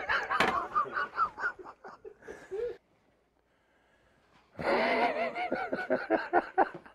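A man laughing in two bouts, with a pause of about two seconds between them.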